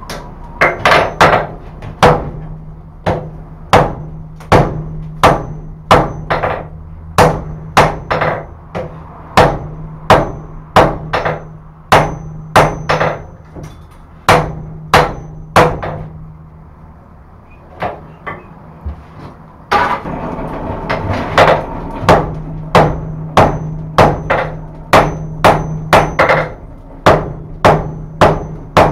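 Hand hammer striking a hot forge-welded steel billet on the anvil to draw it thinner: a steady run of sharp blows, about one and a half a second, pausing for a few seconds past the middle and then starting again.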